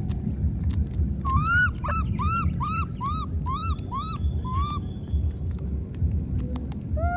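Baby macaque crying: a run of about nine short rising-and-falling squeals, about three a second, then a pause and one more cry near the end, over a steady low rumble.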